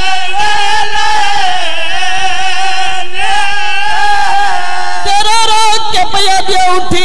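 A man singing a mourning lament into a microphone in long, drawn-out notes that waver in pitch.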